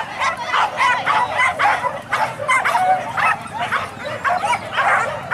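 A pack of boar-hunting dogs yelping and barking excitedly, short high calls overlapping one after another, several a second without a break.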